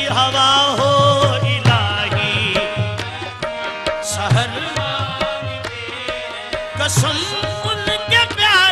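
Qawwali-style naat: harmoniums sustaining chords under a gliding, ornamented lead vocal line, with tabla strokes keeping the rhythm.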